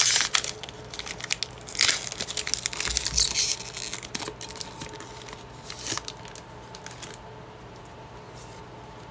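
Foil wrapper of a Pokémon trading card booster pack crinkling and tearing as it is ripped open by hand, loudest in the first three and a half seconds, then softer rustling that dies away about seven seconds in.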